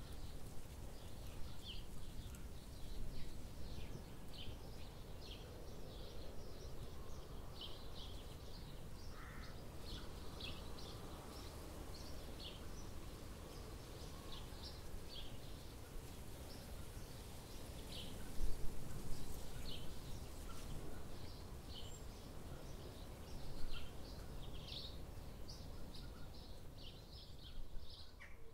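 Forest ambience: many small birds chirping in short, high calls throughout, over a steady low background rush, with a couple of brief low bumps.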